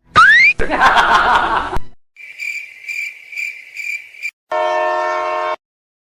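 Edited comedy sound effects: a quick rising whoosh and a loud noisy burst, then a high cricket-like chirp pulsing about twice a second. It ends with a single train-horn blast of about a second that cuts off abruptly.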